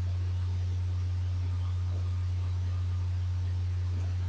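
A steady low hum, one deep unchanging tone, over a faint hiss.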